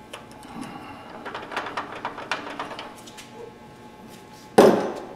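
Tools and parts being handled at a workbench: a run of light clicks and taps, then one loud clunk about four and a half seconds in as something is set down hard.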